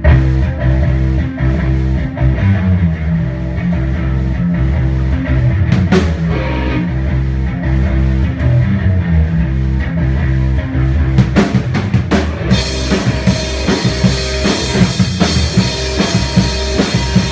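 Grunge rock band playing an instrumental intro: a bass and guitar riff over drums, with cymbals and fuller drumming coming in about twelve seconds in.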